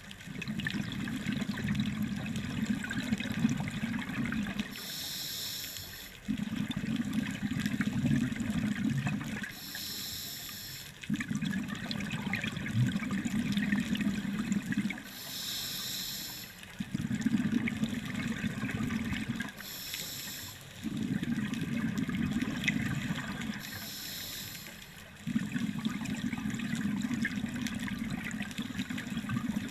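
Scuba diver breathing through a regulator underwater. Each breath is a short hiss of inhalation through the demand valve, followed by a longer, louder bubbling as the exhaled air leaves the regulator, repeating about every five seconds.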